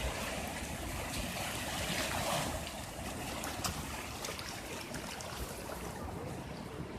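Ocean surf: waves breaking and washing up the beach, a steady rushing noise that swells about two seconds in.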